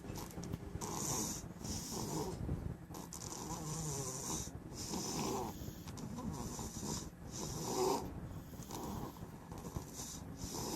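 Chihuahua puppy snoring in its sleep, a steady raspy snore with a hiss on each breath, about one breath a second.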